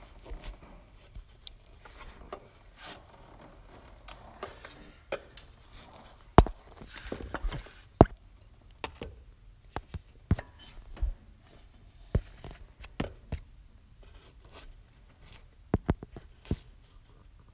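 Irregular light clicks and knocks of hands and phone against the engine's metal intake area, the sharpest about six and eight seconds in.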